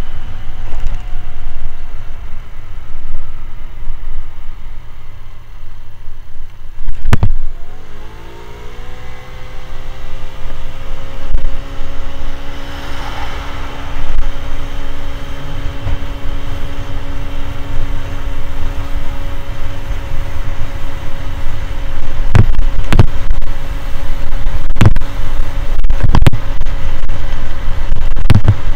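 Motor scooter engine under way with heavy wind rushing over the microphone. About seven seconds in the engine note climbs as the scooter accelerates, then holds steady; several sharp buffeting thumps come near the end.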